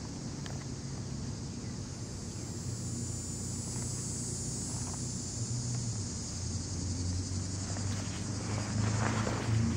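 Outdoor ambience: a steady high insect drone, as from crickets, over a low steady hum, with a few faint handling knocks near the end.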